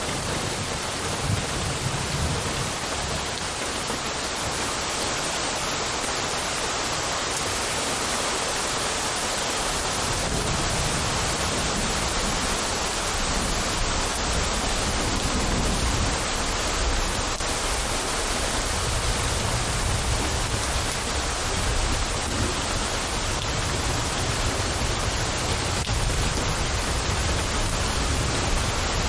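Steady rain hissing, with a low rumble of distant thunder building underneath from about a third of the way in.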